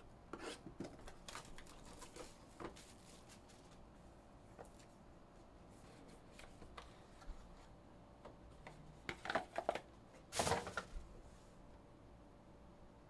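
Box cutter slitting the plastic seal on a sealed trading card box with light scrapes and clicks, then the cardboard box being opened and its plastic contents handled, with louder crinkling and rustling about three-quarters of the way through.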